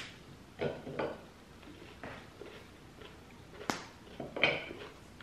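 A chocolate candy bar and its wrapper being handled and unwrapped on a ceramic plate: a handful of short taps and crinkles, the sharpest about three and a half seconds in.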